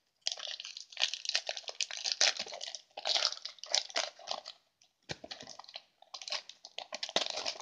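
Foil Pokémon TCG booster pack wrapper crinkling and crackling as it is handled and torn open by hand. It comes in dense spurts with a few short pauses.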